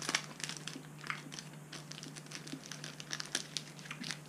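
Plastic candy-bar wrapper crinkling as it is handled and folded, a quiet run of irregular crackles.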